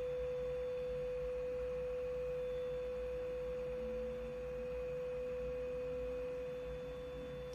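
Smartphone speaker playing a steady, mid-pitched pure test tone as the noise source for a microphone-array localiser. Its loudness sags a little as the phone is moved around the array.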